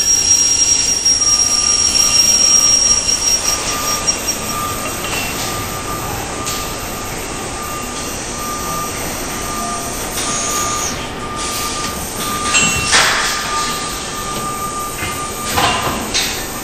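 Industrial machinery running steadily in a metalworking shop, a continuous noise with a steady high whine. A second, higher tone drops out about four seconds in, and two brief hissing swells come near the end.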